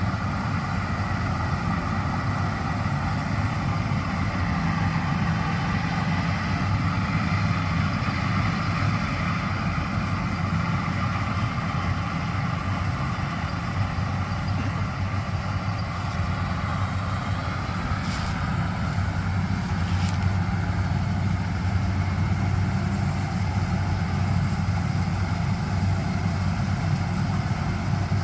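Rice combine harvester running steadily under load, its diesel engine humming low with the noise of the threshing machinery over it.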